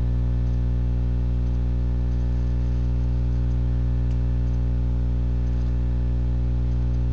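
Steady electrical mains hum with a stack of overtones, recorded through a webcam microphone, with a faint tick about four seconds in.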